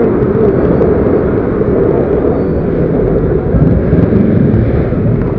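Loud, steady rumble of busy city street traffic.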